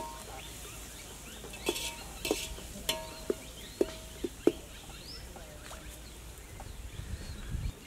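Metal ladle stirring frying onions and ginger-garlic paste in a metal pot, knocking and scraping against the pot about eight times with a short ringing clink each time, then stopping. Faint bird chirps in the background.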